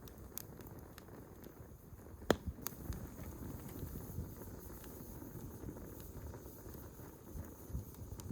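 Swedish torch log fire burning with a steady low rumble and scattered wood crackles, including one sharp pop a little over two seconds in followed by a few smaller snaps.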